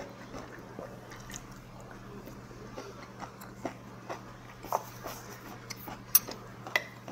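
Close-miked eating sounds: a person chewing and smacking on a mouthful of food, with scattered sharp clicks, the loudest a little past six seconds in.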